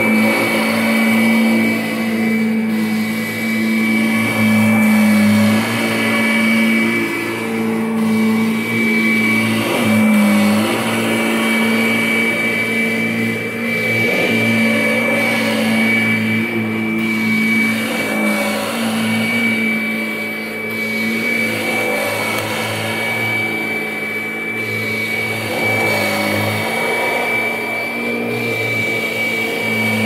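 Kirby G10 Sentria upright vacuum cleaner running while it is pushed back and forth over carpet: a steady motor hum with a high, even whine above it, the pitch and level dipping slightly now and then as it moves. Its motor is one taken from a 2011 Sentria.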